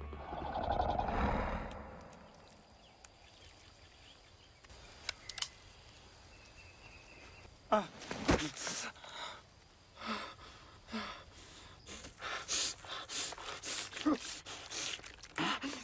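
Film sound effects: a deep rumble fades out over the first two seconds, then quiet. From about eight seconds in come scattered short rustles and thuds of movement, with gasping breaths.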